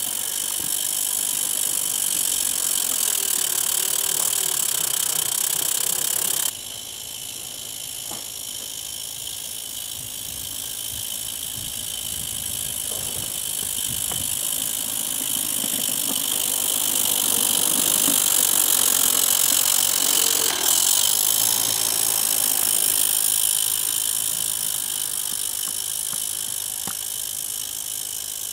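Steady hiss of a 32 mm gauge live steam model locomotive working hard as it pushes a snowplough through deep snow. The hiss drops in level about six seconds in, then builds again.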